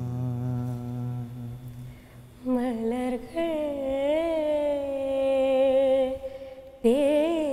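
Unaccompanied duet singing without words. A man's low held note with vibrato fades out; then, about two and a half seconds in, a higher voice hums a long, wavering melodic line with a new phrase starting near the end.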